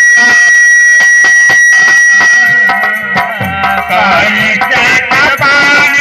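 Live devotional bhajan music: a hand drum keeps a steady beat under a harmonium, with a high note held through the first half. About halfway through, a man's singing voice and fuller drum strokes come in.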